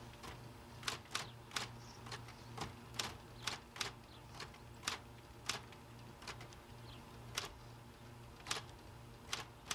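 Faint, irregular sharp clacks, roughly two a second, over a steady low hum.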